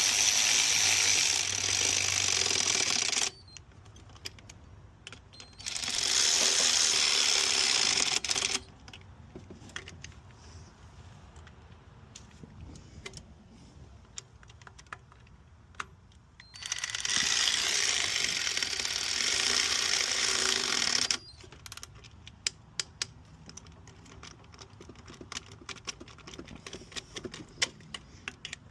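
A power tool runs in three bursts of a few seconds each, driving the new bolts into the throttle body, with light clicks of hand tools between the bursts.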